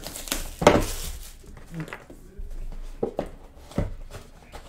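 Cellophane wrap crinkling as it is stripped off a trading-card box, then a few separate knocks as the cardboard box is handled, about three to four seconds in.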